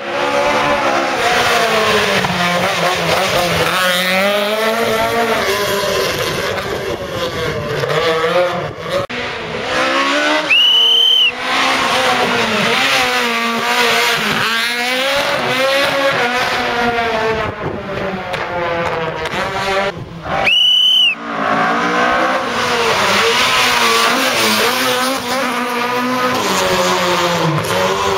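Rally cars, among them a classic Ford Escort and an MG ZR, passing at speed one after another, their engines revving up and down through the gears. Tyres squeal briefly twice, about ten and twenty seconds in.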